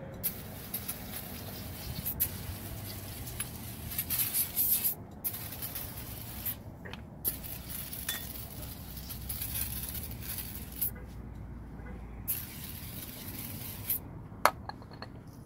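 Hissing, like a spray, in several spells of a few seconds each with short breaks between them, over scattered clicks and light knocks; a sharp knock comes near the end.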